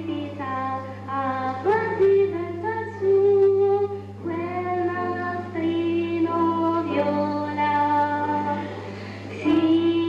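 A young solo singer performing an Italian children's song with piano accompaniment, the voice moving from one held note to the next. A steady low hum runs underneath.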